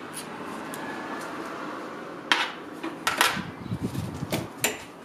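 A handful of sharp metallic clinks and taps at irregular spacing, starting about two seconds in: steel hand tools and hub parts knocking together while a go-kart rear wheel hub is being taken off.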